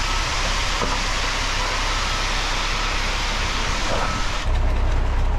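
Ready-mix concrete truck discharging: the engine runs under a steady rushing hiss of wet concrete sliding down the steel chute. The hiss stops about four and a half seconds in, and the engine then sounds louder.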